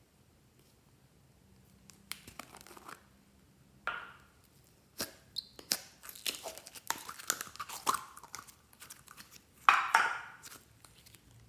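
Glossy slime being worked by hand: irregular sticky crackles and clicking pops starting about two seconds in, with a louder crackling burst near the end.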